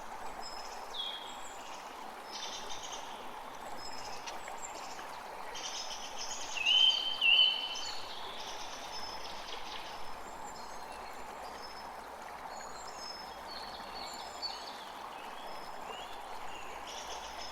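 Steady rain falling as an even hiss, with birds chirping throughout; two louder short bird calls come about seven seconds in.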